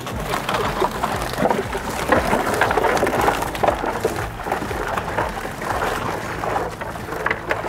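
Live mullet flapping inside a cast net on a boat's fiberglass deck, with water streaming and dripping off the mesh: a fast, irregular patter of slaps and splashes.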